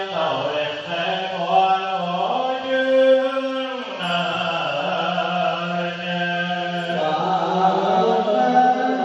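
Vietnamese Buddhist liturgical chanting: voices intoning in long held notes that step up and back down in pitch every second or two, without pause.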